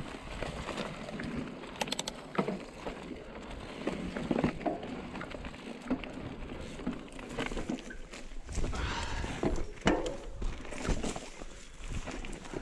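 Trek Remedy full-suspension mountain bike ridden over rough dirt trail, its frame and drivetrain giving irregular knocks and rattles as the tyres hit roots and rocks. Wind buffets the microphone for a couple of seconds past the middle.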